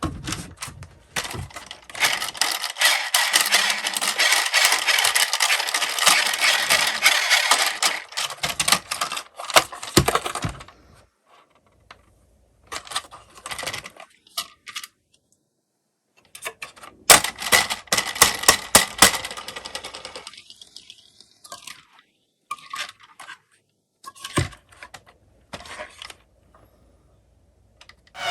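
Many small die-cast Tomica minicars clattering and clinking against each other and the box: a long dense rattle of metal clicks, a few scattered clinks, then a second shorter dense run, tailing off into odd clicks near the end.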